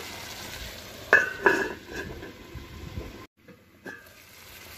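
Tomato and onion mixture sizzling in a clay pot, with two sharp metallic clinks about a second in. The sound drops out abruptly, then stays faint.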